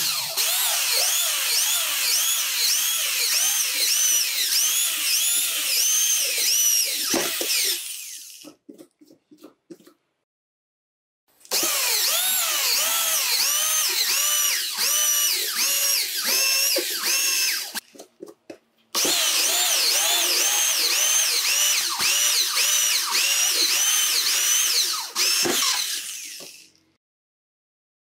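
Electric drill with a 22 mm HSS hole cutter cutting holes through a sheet-metal panel door, in three runs of several seconds each with short pauses between. The drill's whine rises and falls over and over while it cuts.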